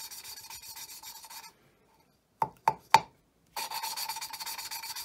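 Engine valve being hand-lapped into its seat with grinding paste on a lapping stick spun between the palms: a gritty metal-on-metal rasping with fast, even back-and-forth strokes. About halfway through the rasping stops, the valve is tapped down on its seat three times in quick succession, and the rasping starts again.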